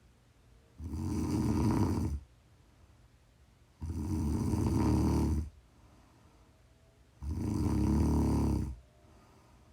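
Snoring: three long, rough snores about three seconds apart, each lasting about a second and a half, with quiet breathing gaps between.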